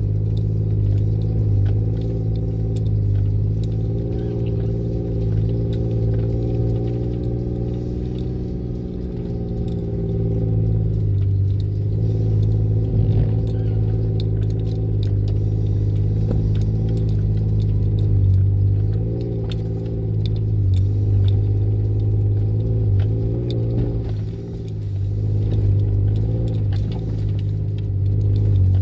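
An off-road SUV's engine running at low speed, heard from inside the cab, its note wavering up and down as it crawls along the trail. Light rattles and clinks come from loose items in the cab over the bumps.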